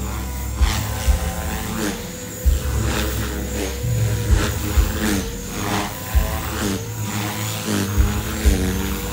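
Gaui X3 electric RC helicopter flying, its motor and rotor whine dipping and rising in pitch over and over as the head speed changes. Low thumps come irregularly, about once a second.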